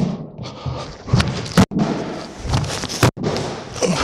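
A man's feet stamping and shifting on a cardboard nappy box stiffened inside with a spray-on protective coating: a run of irregular heavy thuds, two of them sharp. The box takes his weight without collapsing.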